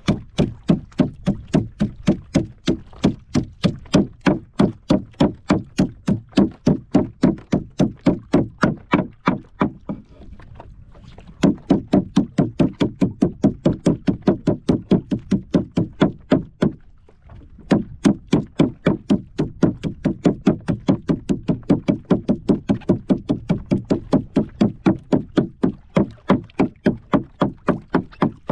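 A heavy bolo knife chopping fish on a wooden board in a fast, steady rhythm of about three to four strokes a second, mincing the fish into chum. The chopping pauses briefly twice.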